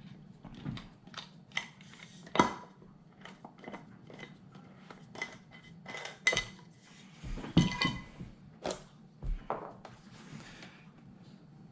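Irregular clicks, knocks and clinks of hard plastic and metal parts being handled while the base is taken off an all-in-one computer. The loudest knocks come about two and a half seconds in and again around six to eight seconds in.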